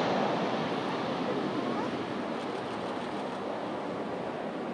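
Jet airliner on landing approach, its engine noise an even roar that dies away over the first couple of seconds and then holds at a lower, steady level.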